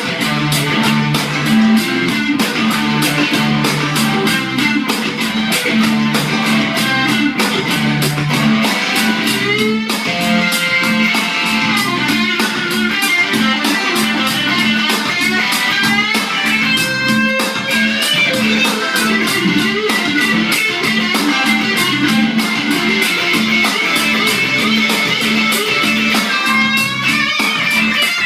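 Electric guitar played over a steady beat, a guitar tone check.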